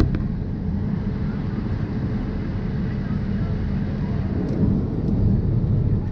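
Steady low rumble of a jet airliner in cruise, engine and airflow noise heard inside the cabin.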